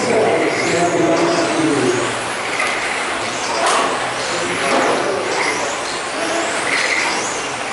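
Electric radio-controlled stock-class touring cars racing, their motors whining up and down in pitch as they speed up and slow down through the corners. There is a single sharp click near the middle.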